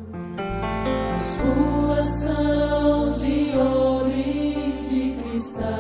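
Christian worship song playing as background music: held chords with a singing voice.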